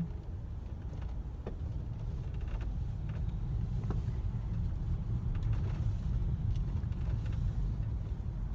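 Car driving, heard from inside the cabin: a steady low rumble of engine and road noise, with a couple of faint clicks.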